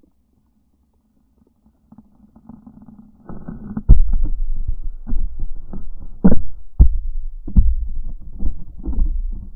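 GoPro camera in its waterproof housing underwater, knocking and scraping against rocks as the water moves it: muffled, irregular low thumps and rumbling. These start a little over three seconds in, after a faint low hum.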